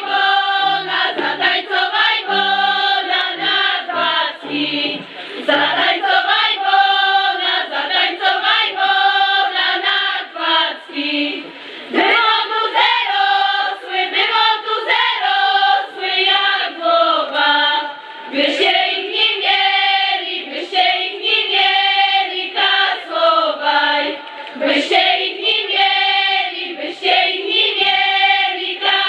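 A group of women singing a highland folk song together, unaccompanied. The song goes in repeated phrases of about six seconds, with short breaks between them.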